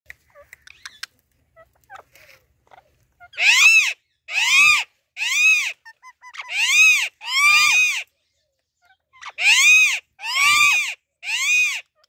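Indian ringneck parakeet calling: eight loud, shrill calls of about half a second each, every one rising then falling in pitch, coming in groups of three, two and three from about three seconds in.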